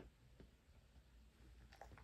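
Near silence with a few faint light clicks as strips of dried lamb treat are set down on a tabletop by hand.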